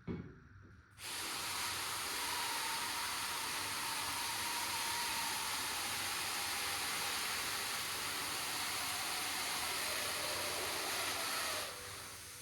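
Gas hissing steadily into a Mylar blimp envelope as it is inflated. The hiss starts abruptly about a second in and cuts off sharply near the end, after a brief low thump at the very start.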